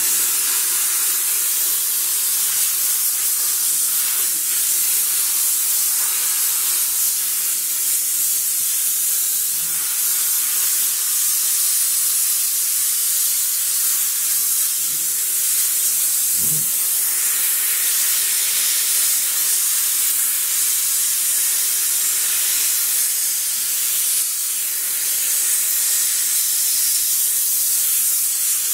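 Sauber Brilliance steam cleaner jetting steam in a steady, unbroken hiss.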